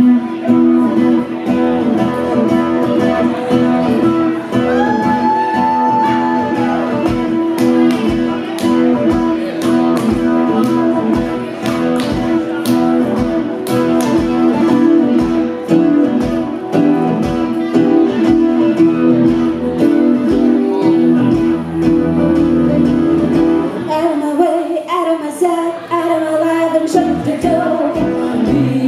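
Live acoustic guitar being strummed over held chords in a steady rhythm, the instrumental opening of a song.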